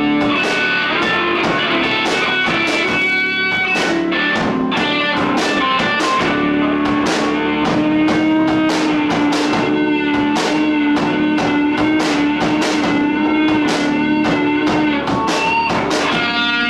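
Live rock band playing: electric guitars over a steady drum beat, with one guitar note held for several seconds in the middle.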